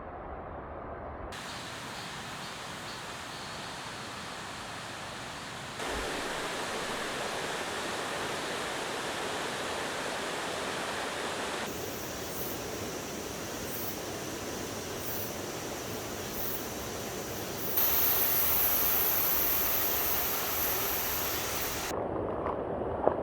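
Mountain stream rushing over rocks: a steady hiss of running water. Its tone and loudness change abruptly several times, and it is loudest a little past the middle.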